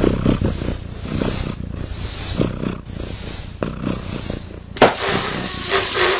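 An animal making rough, low sounds that repeat about twice a second, then a sharp crack about five seconds in.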